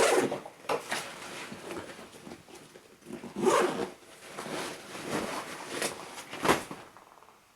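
Zipper on a backpack compartment being pulled open in several strokes, with rustling of fabric gear being handled; the loudest pulls come about halfway through and near the end.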